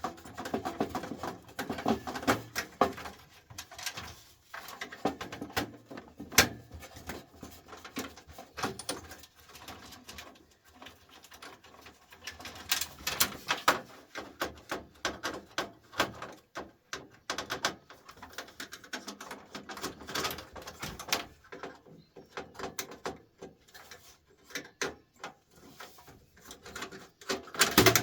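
Irregular metallic clicks, taps and scrapes of a flathead screwdriver working the screws out of a desktop computer's motherboard, with parts being handled and set down.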